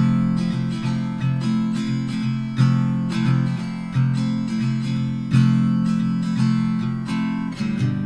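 Background music of strummed acoustic guitar chords in a steady, bouncy rhythm.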